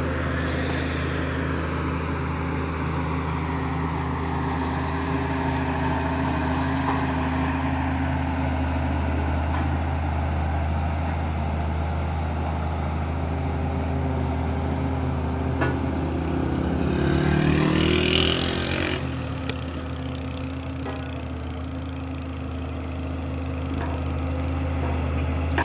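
A motor engine idles steadily with a low hum throughout. Vehicles pass by, one swelling louder and then fading about two-thirds of the way through.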